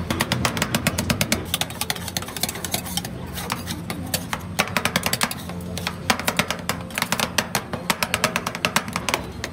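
Two metal spatulas chopping and tapping on a steel cold plate, mashing Oreo crumbs and blueberries into rolled ice cream base: a fast clatter of metal striking metal in runs of many strikes a second, with a short lull about three seconds in.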